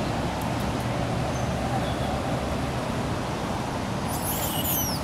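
Steady outdoor background noise, a low rumble and hiss like distant traffic, with a few brief high squeaks near the end.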